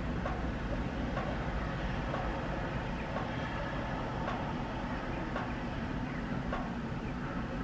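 Distant SM42 diesel-electric shunting locomotive running as it approaches with a work train: a steady low rumble, with faint clicks now and then.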